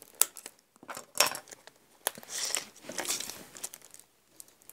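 Plastic packaging crinkling and rustling as it is handled, with a few sharp clicks and taps early on the table, then a longer rustle in the middle.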